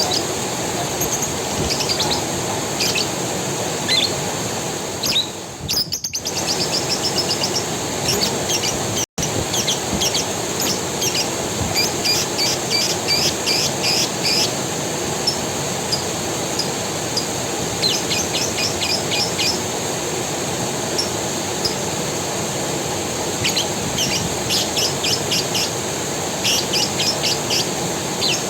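A forest creek running steadily, with small birds chirping over it in bouts of quick, rapidly repeated high notes. The sound cuts out for an instant about nine seconds in.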